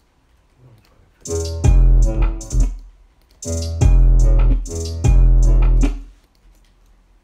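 Trap beat in progress playing back: deep 808 bass notes under a melodic part. It comes in about a second in, in short phrases that stop and start again, with a break near the end.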